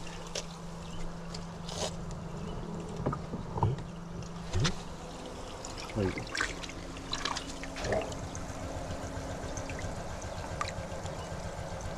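Water trickling and splashing in a tank of live ayu, with scattered small splashes and clicks over a steady low hum.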